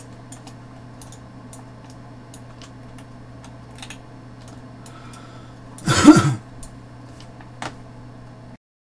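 Steady low electrical hum on the microphone with scattered faint clicks, and a single loud cough about six seconds in. Near the end the sound cuts out to dead silence.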